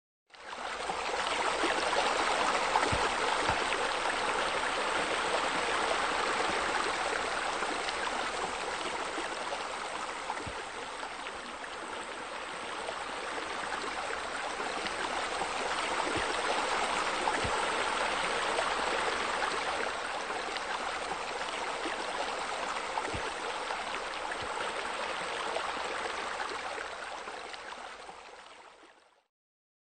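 Steady running, splashing water, like a small stream or fountain, starting abruptly just after the beginning and fading out near the end.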